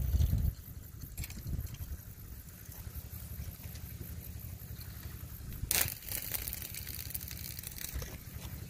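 Handling noise as a long surfcasting rod is set on its rod stand: a low rumble with a heavy thump at the start and one sharp click about six seconds in.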